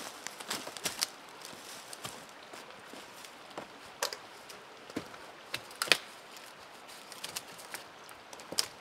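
Footsteps in dry leaf litter and the knocks and rattles of a dead wooden pole being set against a stick-and-log shelter wall, with scattered twig cracks. The sharpest knock comes about six seconds in.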